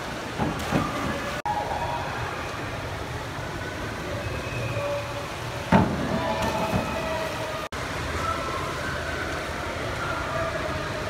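Echoing indoor diving-pool hall: a steady hum with faint distant voices, broken by a few sharp knocks and splashes of divers leaving the board and entering the water, the loudest about six seconds in. The sound cuts out for an instant twice.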